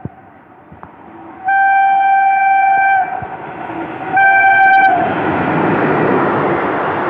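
Indian Railways locomotive horn sounding twice as the Shramjeevi Express runs through the station without stopping: a long blast of about a second and a half, then a short one. Then the rush and rumble of the train's coaches passing close by, loud and steady.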